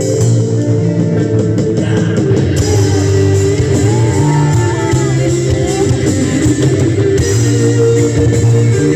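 Rock band playing live through a PA, guitar to the fore over held low notes, heard from within the crowd.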